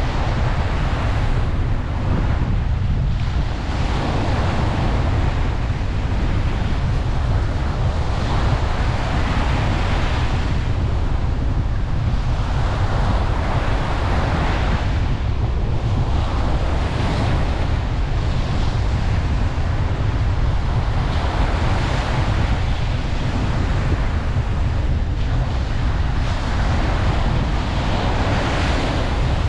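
Ocean surf washing onto a beach, the hiss swelling and ebbing every few seconds over a steady low rumble.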